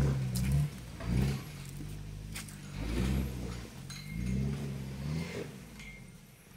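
Toyota Hilux Tiger pickup's engine revving in repeated surges, about four times, as the truck climbs a rutted dirt trail, fading as it pulls away. Sharp knocks and clicks sound between the revs.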